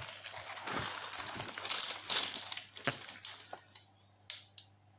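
Packaging rustling and crinkling as a rolled diamond-painting canvas is unwrapped, loudest about two seconds in. After about three seconds it drops to a few scattered light clicks and taps.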